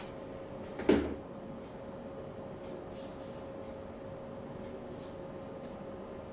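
A single sharp knock with a dull thud, about a second in, over a faint steady hum.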